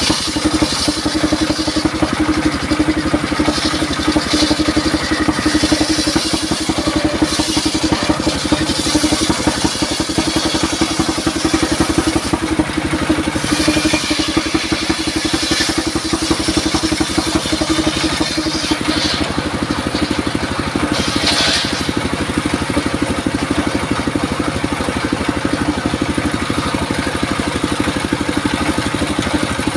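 A 28 hp single-cylinder diesel engine runs steadily with a fast chugging beat, driving a circular saw blade as a log is fed through it. A higher ripping hiss from the blade cutting wood swells and fades several times.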